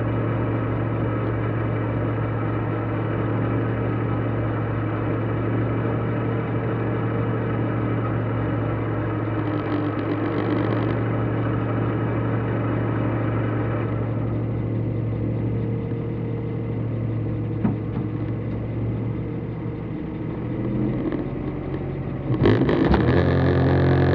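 Ford Fiesta R2T rally car's turbocharged 1.0-litre three-cylinder engine idling steadily, heard from inside the cabin; near the end the revs rise sharply.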